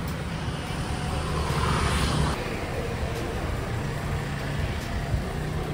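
Steady low mechanical hum over street background noise, with a brief hiss about a second and a half in that cuts off a little over two seconds in.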